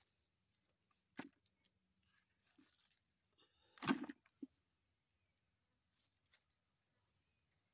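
A few short knocks of loose oil palm fruitlets being picked up by hand and dropped into a plastic bucket. The loudest comes just before four seconds in and a smaller one follows half a second later, over a faint steady high-pitched hiss.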